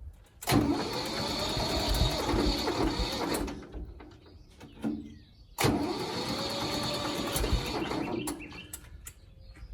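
An engine's starter cranking twice, about three seconds each time, with a pause between, and the engine not catching: a sign of a dead battery.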